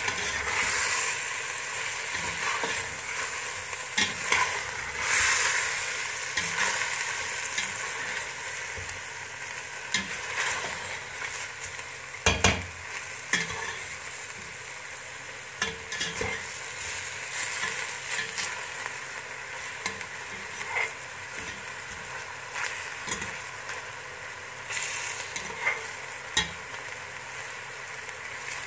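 Chicken pieces sizzling steadily in hot oil in a stainless steel pot while a metal slotted spatula stirs them, scraping and clicking against the pot, with one louder knock partway through.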